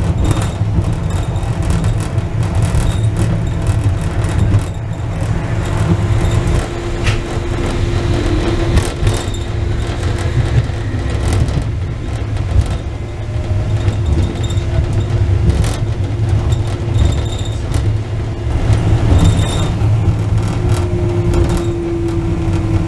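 Wuppertal Schwebebahn suspension railway car running, heard from inside the cabin: a steady low rumble with scattered clicks and rattles, and a faint whine that comes and goes, sliding down in pitch near the end.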